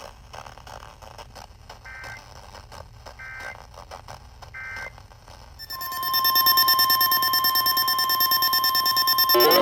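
Three short warbling data chirps of an emergency alert header, about a second apart, over faint radio hiss. About six seconds in, a loud, steady, single-pitch weather-radio warning alarm tone starts, the tone that comes before a new warning is read. A brief rising sweep sounds near the end.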